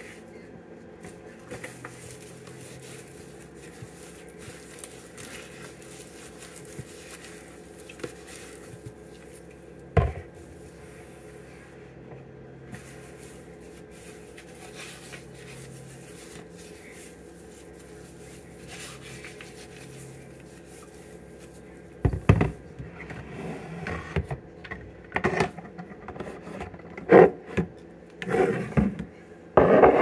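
A cloth rubbing and wiping glass jars on a countertop over a steady low hum, with a single knock about ten seconds in. Near the end come a run of knocks and clatter as jars are handled and set down on the counter.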